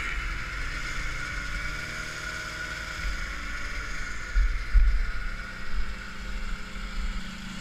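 Vintage two-stroke Ski-Doo snowmobile engines running steadily, with wind buffeting the microphone in heavy gusts about halfway through.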